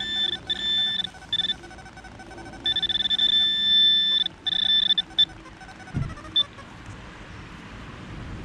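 Metal detector sounding a steady high electronic tone in short on-off bursts, then held for about two seconds: the signal of a metal target, here an old button. A dull thump comes about six seconds in.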